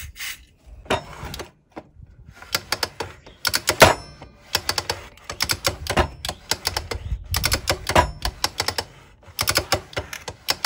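Rapid, irregular clicking and clattering from a mitre saw's pivoting table and arm being worked back and forth to spread freshly sprayed dry lubricant into the pivot.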